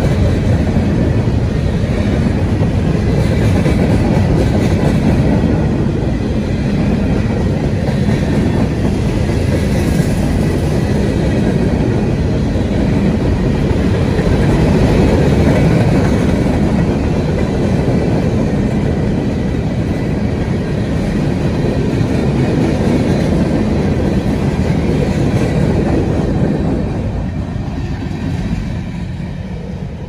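Covered hopper cars of a long CSX freight train rolling past close by, a steady heavy rumble of steel wheels on the rails that gets somewhat quieter near the end.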